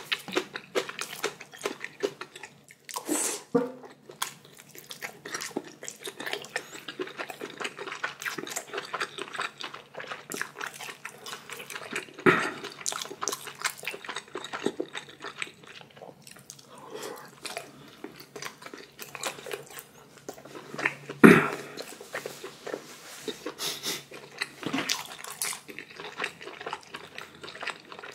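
A person eating spicy ramyeon noodles: wet chewing, slurping and small mouth clicks follow close on one another, with two louder sharp knocks, about twelve and twenty-one seconds in.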